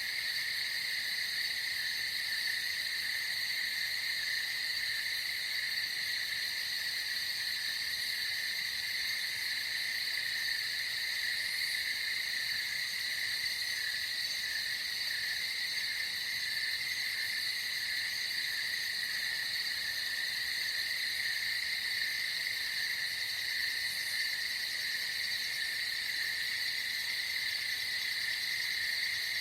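Night nature ambience: a dense, unbroken chorus of calling frogs and insects, a steady high-pitched shrilling at two pitches.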